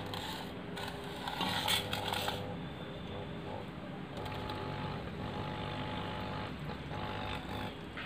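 Small aquarium filter pump running with a steady low hum, with rustling and handling noise in the first couple of seconds as it is set into the glass fish bowl. A faint, steady higher whine joins about four seconds in.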